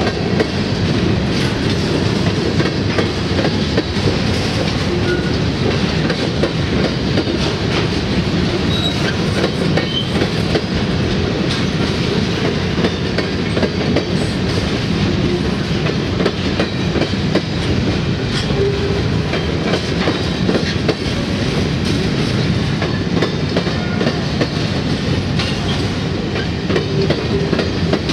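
Covered hopper cars of a freight grain train rolling past close by, their steel wheels running on the rails in a loud, steady rumble threaded with a continual stream of clicks.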